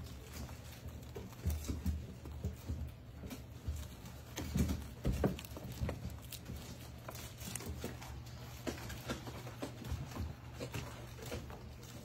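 Puppies scrabbling and clambering on a plastic dog house and toy, with scattered light taps, knocks and patters, a few thuds among them, over a low steady hum.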